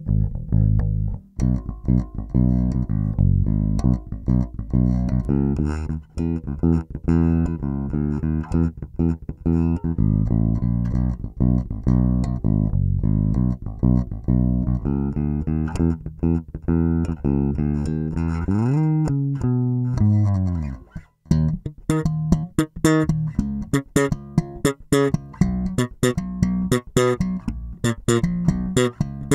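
Epiphone Thunderbird Pro four-string electric bass played with its tone set flat: a run of sustained low notes, a slide up and back down in pitch about two-thirds of the way in, then quick, sharply plucked notes near the end.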